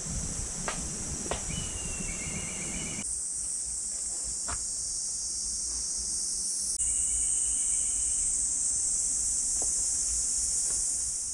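A chorus of cicadas giving a steady, shrill, high hiss, with a short warbling bird call twice.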